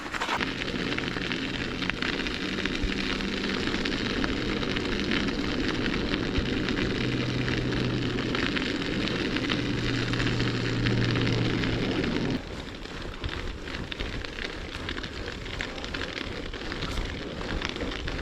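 Bicycle tyres crunching over crusted snow, a steady crackling noise with a low steady hum underneath. It drops off abruptly about twelve seconds in to quieter crunching with scattered clicks.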